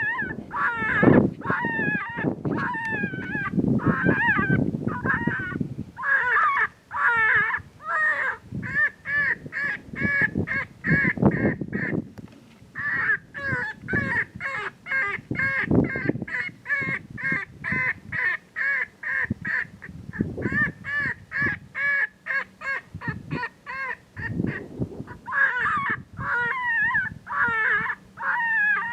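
Predator call playing a distress sound: a long series of high, squalling cries repeated quickly, about three or four a second, with a brief break partway through. Low thumps are mixed in.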